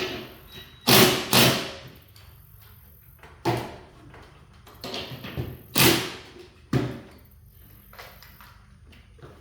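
Sharp bangs and knocks on garage door hardware as the door's track and rollers are worked on: two loud ones close together about a second in, then more, spaced irregularly, through the rest.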